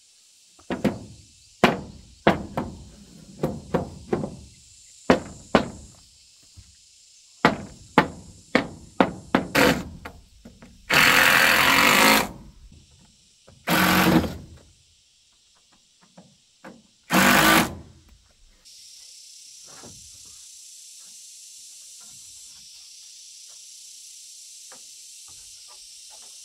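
A wooden mallet knocks the wooden wall boards of a log cabin into place, about a dozen sharp knocks in uneven groups. Then a cordless drill drives screws into the top board in three runs of about a second each. A steady high hiss follows in the last several seconds.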